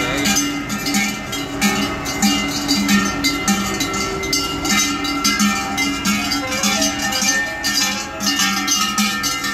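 Many cowbells clanging continuously as a tractor parade passes, with a low pulse about twice a second underneath.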